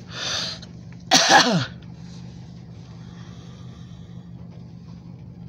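A person sneezes once inside a car: a breathy intake, then a loud sneeze whose voice falls sharply in pitch. A steady low hum of the car's cabin runs underneath.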